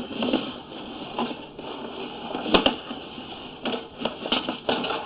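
Ridgid sewer inspection camera's push cable being fed into the line: irregular clicks, knocks and scraping, with the sharpest click a little past halfway.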